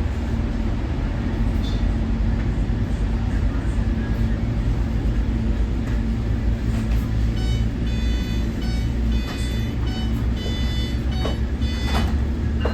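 Nippon Sharyo diesel multiple unit heard from on board while running: a steady low diesel drone and rumble. In the second half, short high-pitched tones come and go several times.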